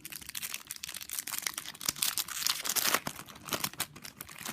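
Crinkling and tearing of a trading-card pack wrapper being ripped open and handled, a dense run of small crackles.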